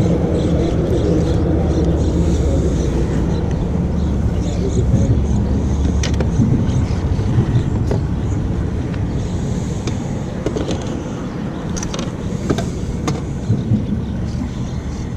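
Steady low rumble of road traffic crossing the bridge overhead, heavier in the first half and easing a little later, with a few sharp clicks near the end.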